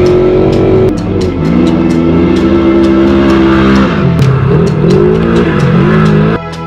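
Off-road race vehicle engine running hard, then revving down and up several times, over a music track with a steady beat. The engine sound cuts off suddenly just before the end.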